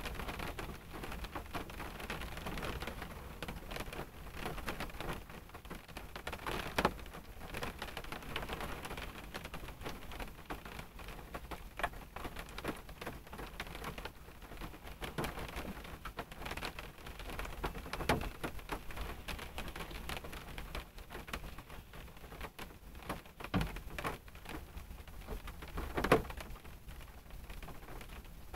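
Rain falling on a car, heard from inside the cabin through a phone on the dashboard: a steady hiss of rain with scattered drop ticks and a few louder single drop impacts, the loudest about 26 seconds in.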